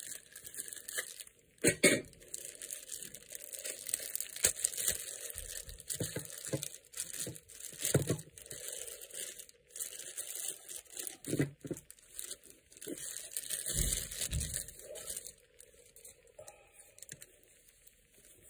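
Clear plastic wrapping crinkling and rustling as a watch is pulled out of it by hand, with irregular sharp crackles, the loudest about two seconds in, and a few dull handling thumps; it quietens over the last few seconds.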